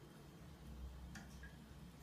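Near silence with a faint low hum, broken about a second in by a single faint click of a cat's claws against a kitchen cabinet door and handle as it paws at them.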